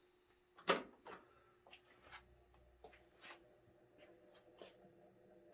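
A switch on a mid-1980s Sanyo-made Sears 12-inch table fan clicks sharply about a second in. The fan motor then starts with a faint hum and scattered light ticks. The fan runs sluggishly on low, about half the speed it should, which the owner suspects may be a failing capacitor.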